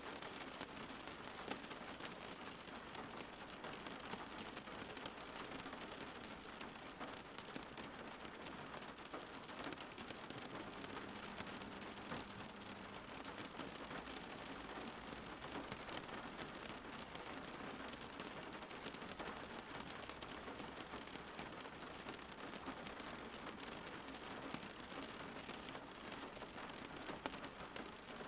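Steady rain falling, an even hiss of dense drops pattering on a surface.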